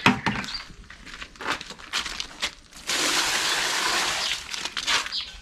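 Water poured out of a bucket in a steady gush, starting about three seconds in and lasting about two seconds, after a few light knocks.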